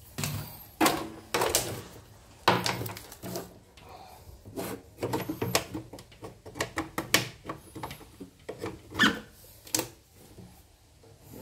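Handling noises from a plastic portable embroidery machine and its embroidery hoops being shifted about on a wooden bench: irregular knocks, scrapes and rubs, the sharpest knocks coming singly every second or two.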